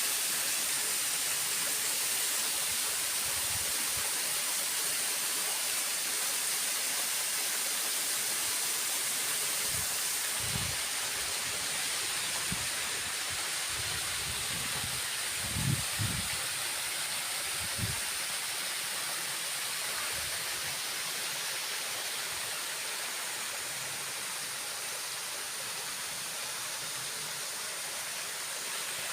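Waterfall rushing: a steady hiss of falling water, with a few brief low thumps around the middle.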